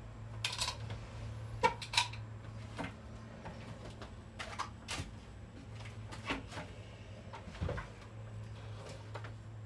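Scattered light knocks and clicks of small objects being picked up, moved and set down by hand, a dozen or so spread irregularly, over a steady low hum.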